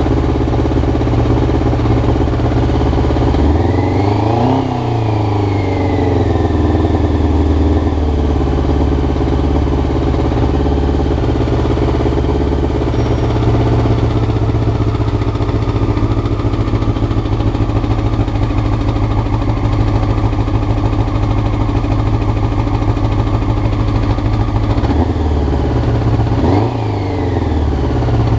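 Honda CBR motorcycle engine idling high and unevenly, around 2,000 rpm: the rough idle of a carburettor being sorted out after new float needles. It is blipped briefly about four seconds in and again near the end.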